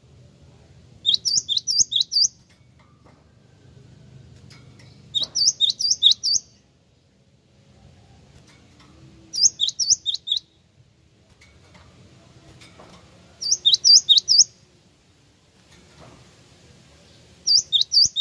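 Great tit (gelatik wingko) singing in short bursts of five or six rapid, sharp, high notes, each burst about a second long, repeated roughly every four seconds.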